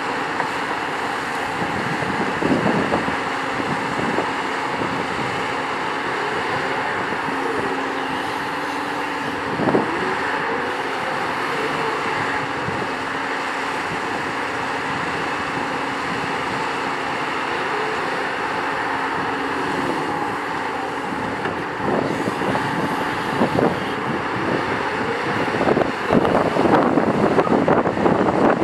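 Doosan DX235LC-5 crawler excavator's Doosan DL06P diesel engine and hydraulics running while it digs soil, with a steady hum through the first two-thirds. The bucket knocks a couple of times early, and the knocks crowd together and grow louder near the end.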